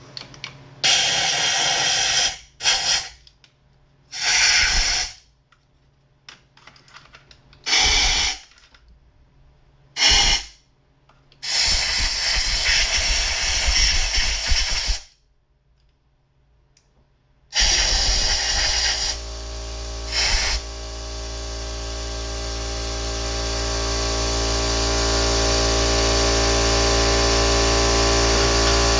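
Compressed air hissing from a blow gun in repeated blasts into the engine's injector bores to clear out debris, some short and one held for a few seconds. About two-thirds of the way through, a motor starts and runs steadily with a hum that slowly grows louder.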